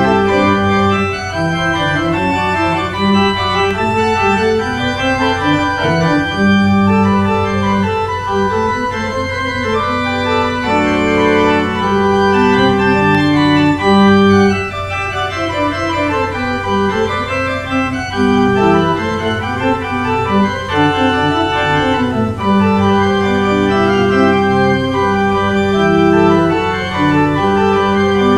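Church organ playing offertory music, a slow piece of held chords with moving lines above and below.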